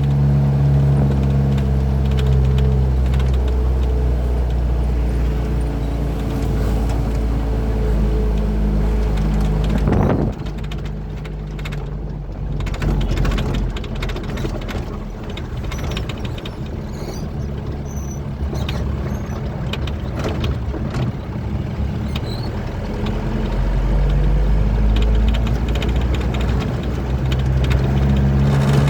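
Truck's diesel engine running under load. About ten seconds in it drops off with a brief sharp noise, runs lower for a while, then pulls strongly again near the end.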